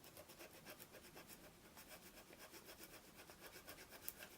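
Small multi-tool knife blade sawing back and forth through a rope offcut in quick, faint scraping strokes, several a second. The blade is blunt and cuts only with effort.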